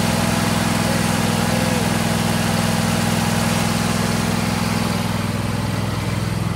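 John Deere LA120 lawn tractor engine running steadily.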